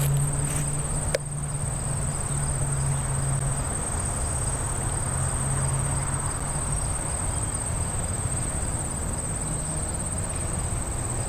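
Insects trilling, a steady, high-pitched, slightly pulsing chorus that holds throughout, over a low rumbling noise.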